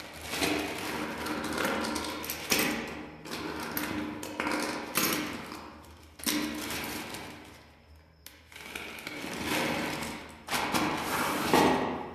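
Rustling and clattering of plastic craft beads and a clear plastic bag being handled, in irregular swells with short knocks, dying down about two-thirds of the way through before picking up again.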